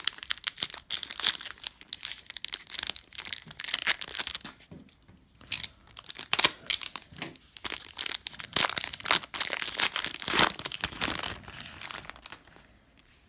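A plastic trading-card pack wrapper being torn open and crinkled in the hands, in irregular crackling bursts with a short pause partway through, dying away near the end.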